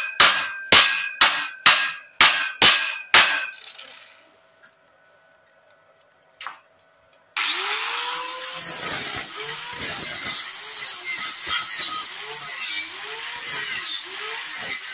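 A hammer striking a welded joint on square steel tubing about twice a second, seven ringing metal strikes, then a pause. About seven seconds in, an angle grinder starts abruptly and grinds down the weld bead, its pitch dipping and recovering again and again as it is pressed into the metal.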